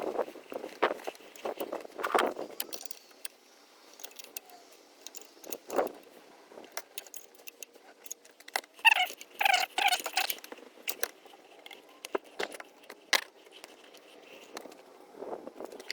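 Metal clinks and clicks of hand tools and fittings as the fuel lines and wiring are refitted and tightened over the Ford 1.8 TDCi diesel engine, with a brief squeak about nine seconds in.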